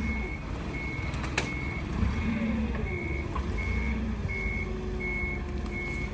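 Forklift's warning alarm beeping steadily, about three beeps every two seconds, over the low running of its engine as it moves up to the truck.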